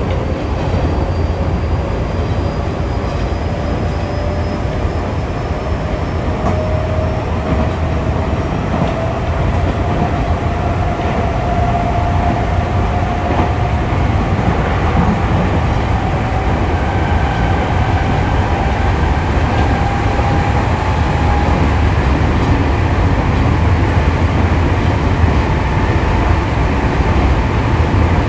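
Nankai 6200-series electric train running, with a steady low rumble of wheels on rail. Over it a motor whine climbs slowly and evenly in pitch as the train gathers speed.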